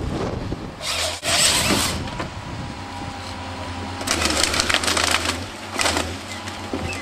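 Gremo RH 106 harvester head's chain saw cutting through a log in loud bursts, about a second in, again around four seconds in and briefly near six seconds. A steady machine hum runs underneath, with a thin steady whine in the second half.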